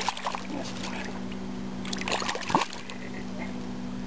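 Carp splashing in shallow water as it is held by hand at the water's edge, with short splashes near the start and again about two seconds in, over a steady low hum.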